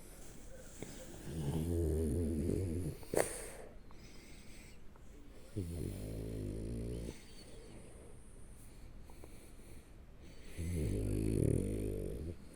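French bulldog asleep on its back, snoring: three long, rattling snores about four seconds apart. A short sharp click comes just after the first snore.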